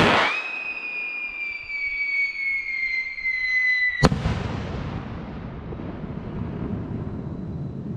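An 8 oz whistle rocket whistling as it climbs: one long whistle that slides slowly down in pitch for about four seconds. It ends in a single sharp bang as the rocket bursts, followed by a low rumble that slowly fades.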